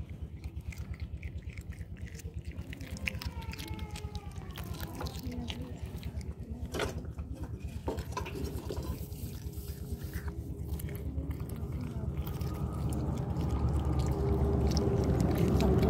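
Cats chewing and crunching small raw fish, with scattered wet clicks and bites. A low rumbling growl runs under the chewing and grows louder over the last few seconds, the angry sound of a cat guarding its food.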